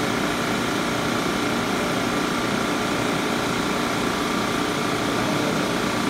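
Refrigerant recovery machine running with a steady hum, its compressor pulling refrigerant out of the air-conditioning system during recovery.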